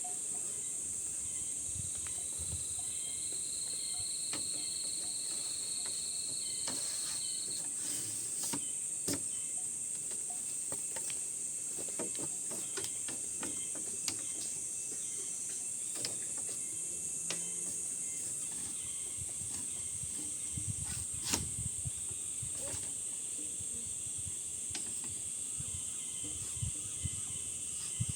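Steady high-pitched buzz of an insect chorus, with scattered light knocks and taps over it.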